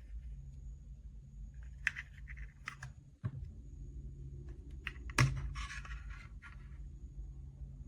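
Scattered sharp clicks and short scratchy rustles of small objects being handled, over a steady low hum; the loudest click comes about five seconds in.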